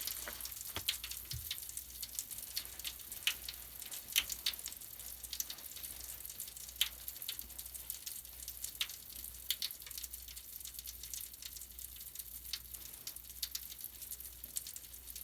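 Suds of purple Pinalen cleaner and a bath-crackle product crackling and fizzing, a dense run of small irregular pops and ticks that never stops.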